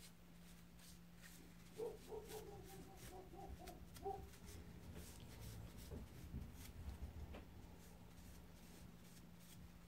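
Near silence: room tone with a steady low electrical hum. A faint wavering pitched call sounds from about two to four seconds in, and a low rumble swells around the middle.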